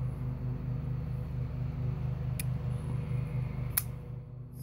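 Quartermaster QSE-7 titanium frame-lock flipper knife being worked open and shut on its bearing pivot, giving two sharp clicks, one about halfway through and one near the end. Under it runs a steady low hum with a fast regular pulse.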